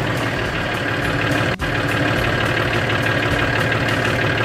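John Deere tractor's diesel engine idling steadily just after being started with the key, with a brief break in the sound about a second and a half in.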